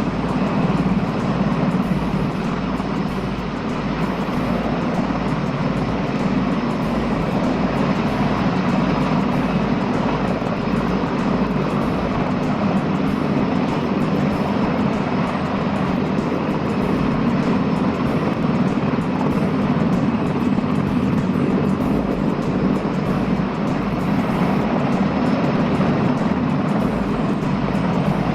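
Mi-26 heavy-lift helicopter's rotor and turbine engines running in a steady loud drone while it lifts a Tu-134 airliner. The deepest rumble thins out for several seconds in the middle.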